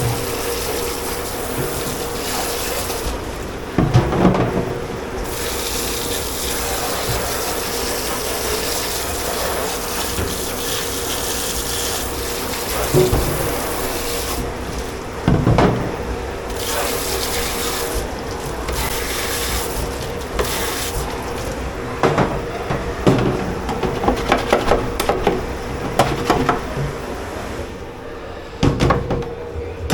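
Water running from a tap into a commercial kitchen sink, with dishes and pans knocking against each other now and then and clattering busily near the end. A steady machine hum runs underneath.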